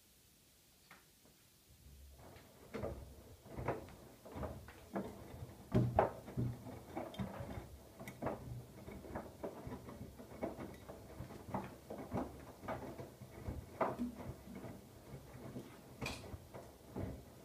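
Siemens iQ700 front-loading washing machine on its Rapid 20 wash: after a short pause the drum turns again, and wet laundry tumbles with irregular soft knocks and sloshing over a low motor hum.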